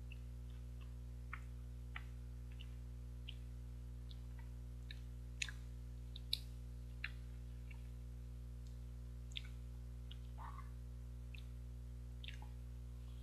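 Close-miked mouth sounds of eating an injeolmi ice cream bar: scattered wet clicks and lip smacks while biting and chewing, a few louder ones near the middle, over a steady low hum.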